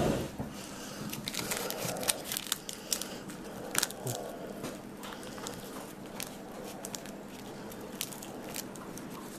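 Crumpled aluminium foil being pressed and stuffed into the nose of a wire-frame deer skull: a run of crackling and crinkling, busiest in the first four seconds and sparser after that.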